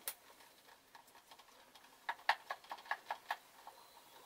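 Small plastic clicks from an action-camera mount being fitted and adjusted by hand on a motorcycle helmet's chin: one click at the start, then a quick run of about eight clicks between two and three and a half seconds in.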